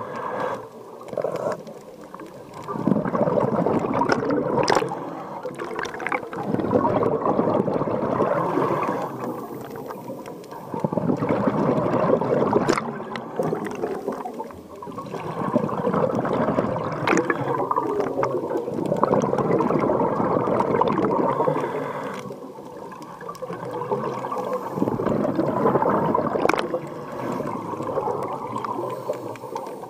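Scuba diver breathing underwater through a regulator: bursts of bubbling exhalation every four or five seconds, with quieter gaps between them for the inhale.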